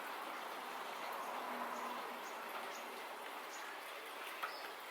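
Faint steady hiss with a series of faint, short, evenly spaced high chirps from a small animal in the background.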